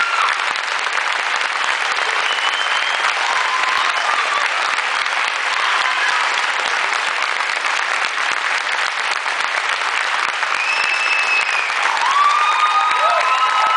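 Theatre audience applauding steadily, with a few voices calling out over the clapping near the end.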